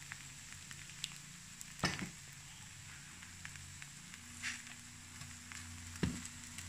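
Takoyaki balls sizzling faintly in an electric takoyaki pan, with scattered small crackles. Two sharp knocks stand out, the louder about two seconds in and another near the end.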